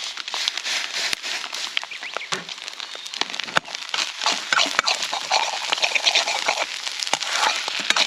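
Food frying in an iron wok over a wood fire: sizzling and crackling with many sharp pops.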